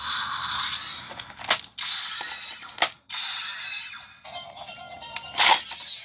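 Electronic standby music from a Kamen Rider Saber DX Seiken Swordriver toy belt through its small speaker. Three sharp plastic clicks come about one and a half, three and five and a half seconds in as Wonder Ride Books are slotted into the belt; the last click is the loudest.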